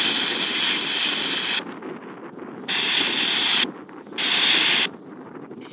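A Yaesu FT-60R handheld radio's speaker opens its squelch three times on incoming 2-metre FM transmissions: three bursts of hissy, garbled audio, the first about two seconds long and the next two shorter, each cutting off sharply. Steady wind rumbles on the microphone underneath.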